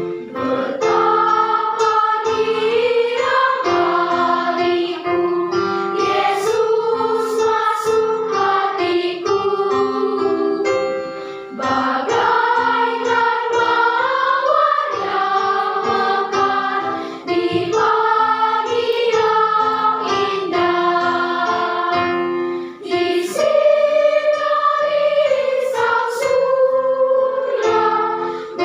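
Children's choir singing a song with keyboard accompaniment.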